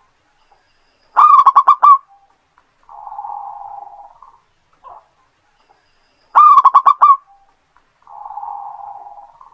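Zebra dove (perkutut) singing its repeated song. Twice, a loud phrase of about five quick, clipped cooing notes is followed about a second later by a softer, longer, lower rolling coo.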